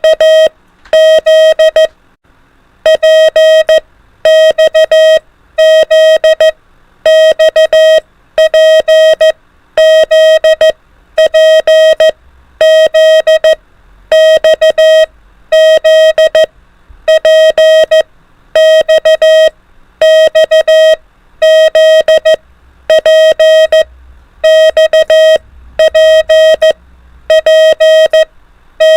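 Morse code practice at 24 words per minute: a single steady-pitched beep keyed on and off in quick runs of dots and dashes, letter groups following one another with short pauses between them.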